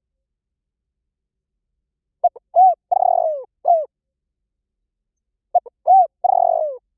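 Spotted dove calling: two identical cooing phrases, each a short note, two arched notes and a longer rough one, about three seconds apart after a couple of seconds of silence.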